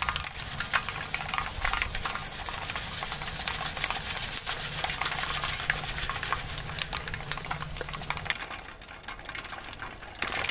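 Mustard and fenugreek seeds frying in hot virgin coconut oil: a steady sizzle with many small sharp pops as the seeds splutter, dying down near the end.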